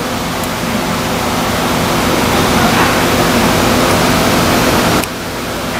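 Steady machinery hum with a rushing air noise, like fans or motors running. It drops suddenly about five seconds in.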